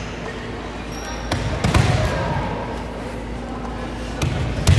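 A volleyball being struck during a rally: four sharp slaps of hand on ball, two about a second and a half in and two near the end, over voices from players and spectators in the hall.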